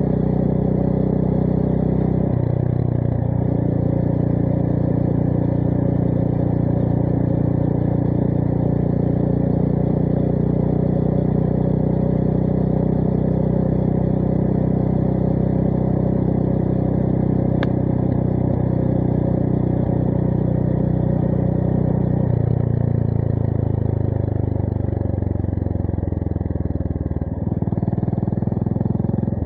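Honda GB350S's single-cylinder engine through a Miller Spitfire slip-on exhaust while riding: a gear change about two seconds in, then a long steady pull, then the engine note falls as the throttle is rolled off for several seconds before picking up again near the end.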